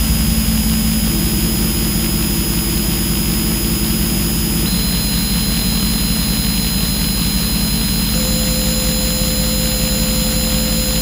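Experimental electronic music: a dense, low buzzing drone with a fast pulse, overlaid by held pure tones that come and go. One tone enters about a second in and gives way to a high, whistle-like tone around four and a half seconds; another joins near eight seconds.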